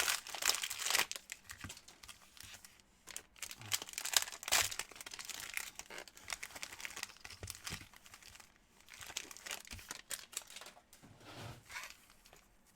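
Plastic cellophane wrappers of trading card packs being torn open and crinkled by hand, in irregular crackling spurts.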